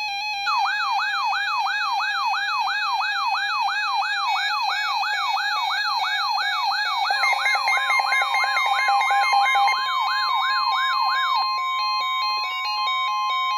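Electronic siren repeatedly sweeping up in pitch, about two and a half times a second, over a backdrop of stepping electronic tones. About seven seconds in, a steady high alert tone joins and holds on after the siren stops near eleven seconds: the NOAA Weather Radio warning alarm tone that comes before a severe thunderstorm warning.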